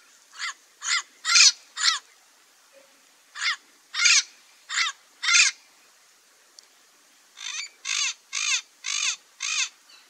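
Rainbow lorikeet calling: short squawks in three runs of four, four and five, each call about half a second after the last.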